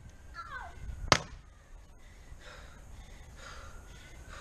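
A single sharp crack about a second in: a hand tool striking a laptop lying on the grass.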